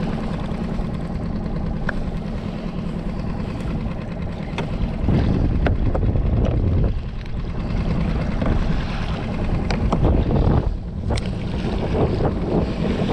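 Skiff's outboard motor running steadily at trolling speed, a continuous low hum under wind and water noise, with a few sharp clicks scattered through.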